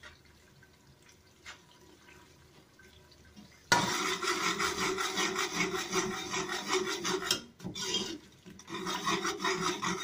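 A spoon scraping and stirring against the bottom of a metal cooking pot as onions and garlic are fried in oil. The scraping starts suddenly about four seconds in, stops briefly past the middle, then resumes.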